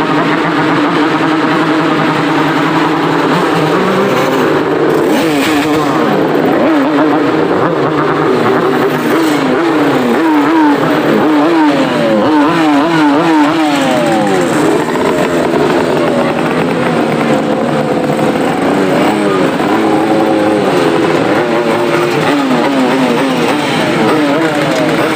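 Many two-stroke motorcycle engines running at once, loud and steady, with riders blipping the throttle. About halfway through, one engine revs up and down quickly over and over.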